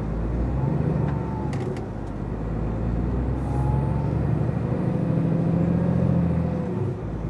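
Scania 500 hp truck's diesel engine pulling a loaded 38-tonne tanker away from a standstill on an uphill slope, heard from inside the cab. The engine note eases briefly about two seconds in, rises again, and drops near the end.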